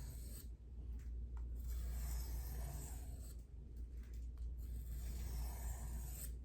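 Knife blade scraping along a sharpening stone in long strokes, with brief pauses between strokes, over a steady low hum.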